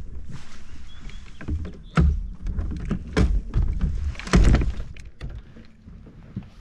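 Several thumps and knocks of gear being handled against a plastic fishing kayak's hull, the loudest about two and four seconds in, with a brief rush of noise near the start.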